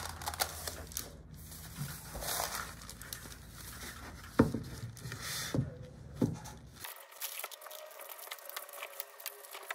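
Rustling and crinkling of a thin sheet being handled and smoothed over a wooden cutting board, with three sharp knocks of the board on the desk around the middle, the first the loudest.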